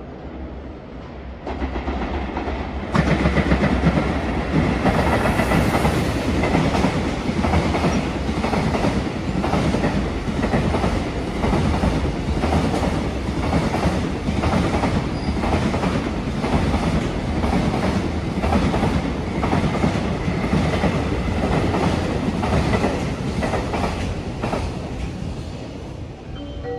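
A JR Freight container train hauled by an EF210 electric locomotive passes close by. The wheels rumble on the rails with a regular clickety-clack over the rail joints. It swells sharply as the locomotive arrives about two to three seconds in and fades near the end as the last wagons go by.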